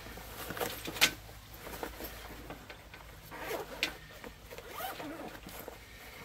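Rummaging inside a large military rucksack: fabric rustling and handling noise with scattered small clicks, a sharp click about a second in.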